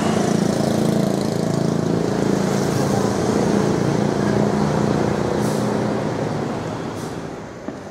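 Tour bus's diesel engine running steadily as the bus pulls away, fading over the last couple of seconds.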